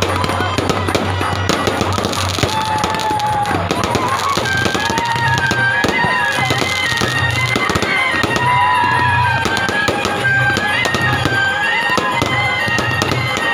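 Fireworks and firecrackers going off in a dense, continuous crackle of pops and bangs. Music plays underneath, with a wavering reedy melody that starts about two and a half seconds in and a pulsing low drum beat.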